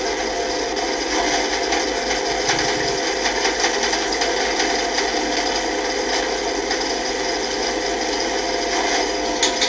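Freight elevator car travelling in its shaft: a steady running noise from the cab and hoist machinery, with a couple of fixed tones, and a few sharp clicks near the end.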